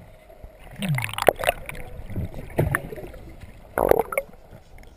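Underwater sound around a snorkeller: gurgling water with scattered knocks and clicks, a short low falling muffled hum about a second in, and a quick rattle of clicks near the end.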